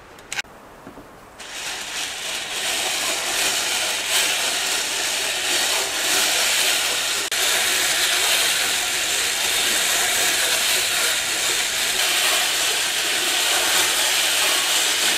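Hand-cranked 3D-printed sock knitting machine being turned, a steady, even noise of its needle cylinder and gears that starts about a second and a half in.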